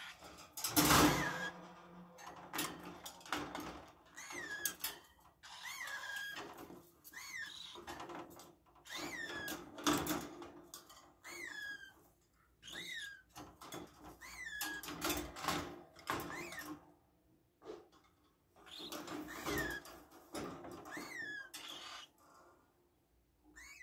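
Young caged parrots calling: a short chirp that rises and then falls in pitch, repeated about once a second with pauses between runs. A few sharp knocks or rattles of the wire cage come through, the loudest about a second in.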